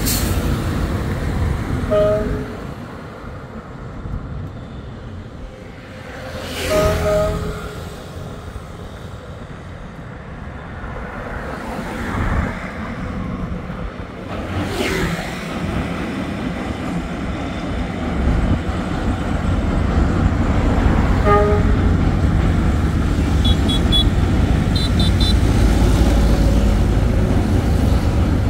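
Road traffic passing on a bridge, with a few short horn toots. From about two-thirds of the way through, the low rumble of a container freight train crossing the steel truss railway bridge nearby grows louder.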